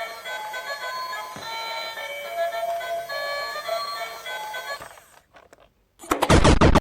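Background music, a melody of held notes, that stops about five seconds in; near the end comes a short, loud burst of noise.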